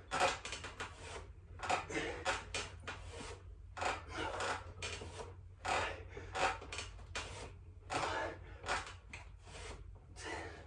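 A man breathing hard during a set of dumbbell pullover crunches: a run of short, quick breaths in and out, about one or two a second.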